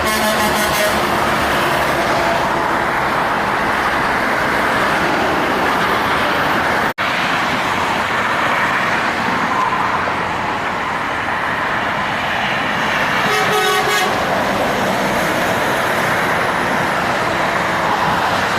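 Heavy truck traffic passing: steady engine and tyre noise, with a vehicle horn sounding briefly near the start and again about 13 seconds in.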